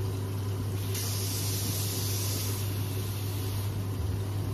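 Kitchen tap running into a plastic measuring jug: a hissing rush of water that starts about a second in and stops a little past halfway. A steady low hum runs underneath.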